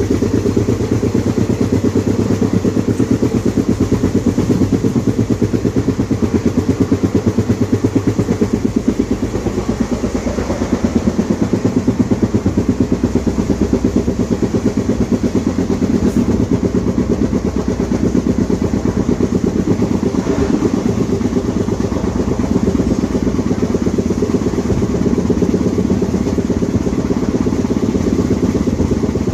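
A flat wheel on an ICF passenger coach knocking against the rail in a rapid, even beat at speed, over the steady running noise of the train. The beat comes once per wheel turn, from the flat spot worn into the wheel tread.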